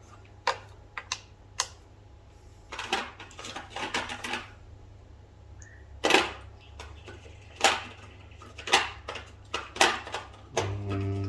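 Metal hand tools clinking and clattering as they are picked through and handled: a series of sharp separate clicks and knocks, with a quicker run of them about three seconds in.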